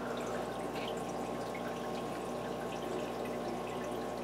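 Aquarium filter running: a steady trickle and splash of water with small drips, over a low steady hum.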